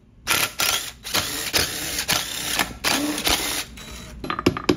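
A cordless power driver runs in several short bursts, backing bolts out of a cover on a Kawasaki jet ski engine. It stops a little past the middle, and a few light metallic clicks follow as the loose bolts and parts are handled.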